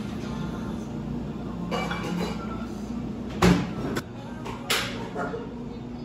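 A few sharp knocks and clinks over a steady low hum; the loudest knock comes about three and a half seconds in, with smaller ones over the next two seconds.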